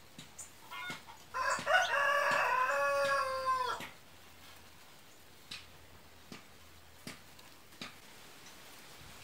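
A rooster crowing once: a single long crow of about two and a half seconds, starting just over a second in. A few faint sharp ticks are heard around it.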